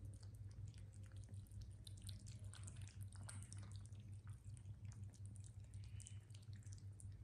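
A cat and two kittens lapping a creamy liquid treat from a plate and bowl: quiet, irregular wet licking clicks over a steady low hum.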